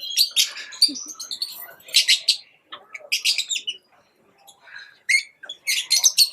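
Pet lovebirds chirping: quick runs of shrill, high-pitched chirps coming in bunches, with a short lull about two thirds of the way through before a busier run near the end.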